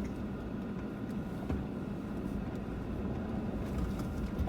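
Motor vehicle driving, a steady low engine and road rumble with a few faint knocks.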